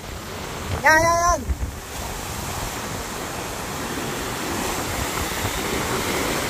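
Heavy surf breaking and washing up the beach close by, a steady rush that grows slowly louder toward the end, with wind buffeting the microphone.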